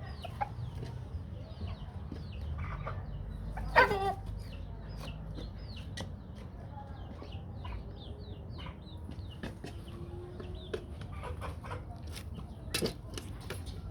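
Aseel chickens clucking, with a steady run of short, high chirps and one loud squawk about four seconds in.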